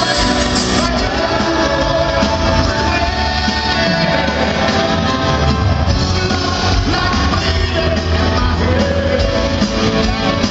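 Live rock band playing loud, with grand piano, electric guitar and a lead vocal, recorded from the audience in a large hall.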